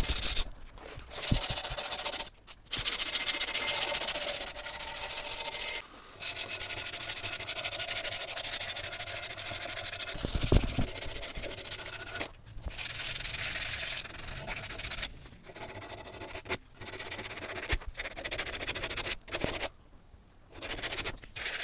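A 1-inch strip of 120-grit sandpaper pulled back and forth around a wooden axe handle, rasping in long runs of strokes with several short breaks, softer in the second half. The sanding is taking old grime and lacquer off the handle.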